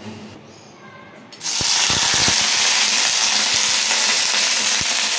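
Chopped okra frying in hot oil in an aluminium kadai: a loud sizzle that starts suddenly about a second and a half in and keeps going steadily, with a few low knocks soon after it starts.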